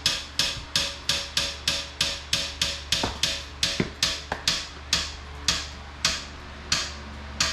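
Jack being let down slowly under the car, with a run of sharp regular clicks, about two to three a second at first, spacing out toward the end.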